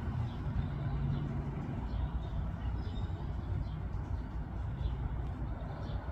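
Steady low outdoor rumble, with faint short high chirps of small birds scattered through it.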